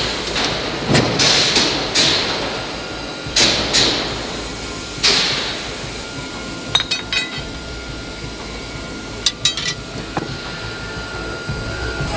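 Forging press striking a glowing steel shackle billet in its die, about six blows roughly a second apart, each followed by a short hiss. Then the blows stop, leaving metallic clinks of tongs on steel and a steady machine whine.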